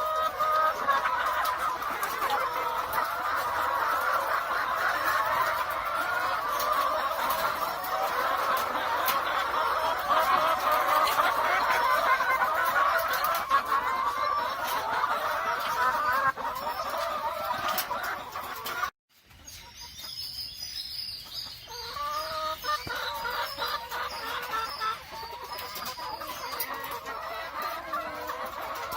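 A flock of caged BV380 laying hens clucking, many birds at once in a dense, continuous chorus. It cuts out for a moment about two-thirds of the way through and comes back thinner, with single hen calls standing out.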